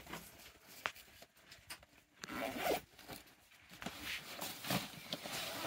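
Bags and a fabric backpack rustling and rasping as they are handled and pushed into a car's cargo area, in short irregular scrapes.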